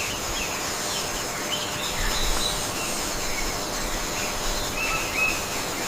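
Natural ambience: a steady hiss with scattered short bird chirps.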